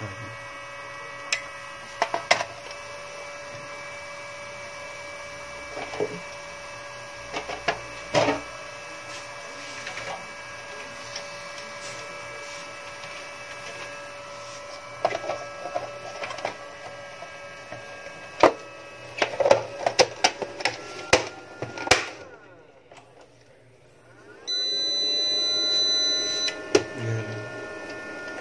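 Homage UPS/inverter running with a steady electrical hum and whine, with scattered clicks and knocks from its casing and parts being handled. Near the end the sound drops almost to nothing, then a louder whine starts, gliding up in pitch before it settles, with a high beep lasting about two seconds.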